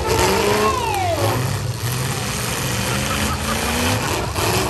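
Engines of several demolition-derby full-size pickup trucks running and revving as the trucks pull away. Around a second in, one pitch rises and then falls.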